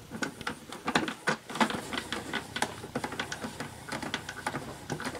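A cloth rubbing and wiping over the hard plastic board of a toy game, with irregular scuffs and small plastic clicks and knocks.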